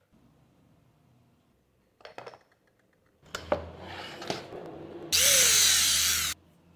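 Knocks and clatter of tools and wood being handled on a workbench. Then a handheld electric drill runs for just over a second, boring a hole into a small plywood block, and cuts off suddenly.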